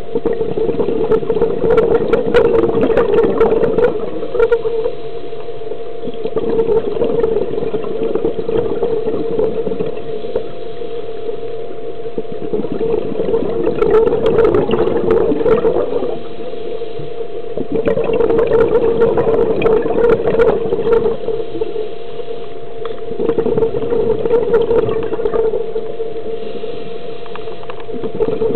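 Underwater scuba breathing: bursts of exhaled bubbles from a diver's regulator lasting three or four seconds, about every five seconds, over a steady hum.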